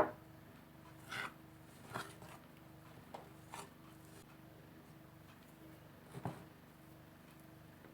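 Pizza dough being mixed in a bowl: a sharp tap at the start, then a few soft, scattered scrapes and swishes, over a faint steady hum.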